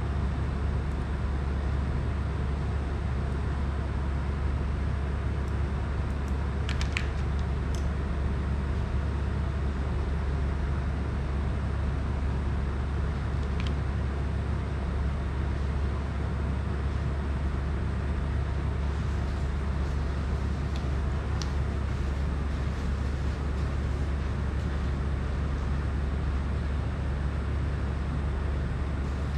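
Steady low hum with an even hiss over it, a constant background drone, with a few faint light clicks about a quarter and half way through.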